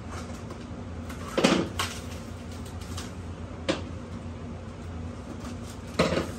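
Large cardboard shipping box being worked open by hand: a few short scrapes and knocks of cardboard, the loudest about a second and a half in and another near the end, over a steady low hum.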